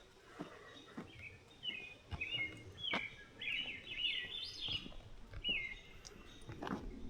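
A songbird singing a run of quick, chirping phrases, with a few soft knocks.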